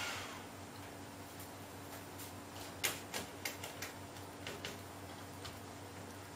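Cooling fans of an opened Dell Precision M4700 laptop stop as the machine powers off, their whining hiss cutting out at the start. A few seconds later comes a quick run of sharp clicks and taps from hands handling the laptop's plastic parts.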